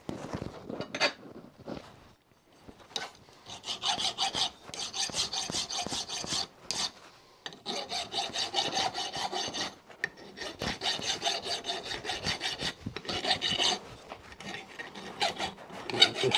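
Hand file being worked back and forth across a small pin held in a bench vise, to polish it up. It goes in runs of quick rasping strokes a few seconds long, with short pauses between them.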